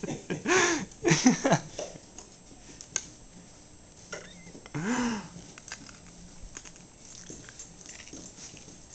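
Dog chasing a laser dot in circles on carpet, giving short yips that rise and fall in pitch: a few in the first two seconds and one about five seconds in, with light clicks and jaw snaps between.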